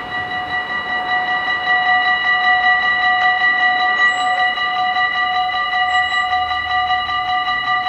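Warning bells of a Dutch automatic level crossing, ringing in rapid, even strokes: the signal that a train is coming and the half barriers are going down.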